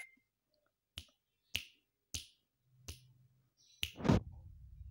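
Fingers snapping five times, about every two-thirds of a second, then a louder, longer noise near the end.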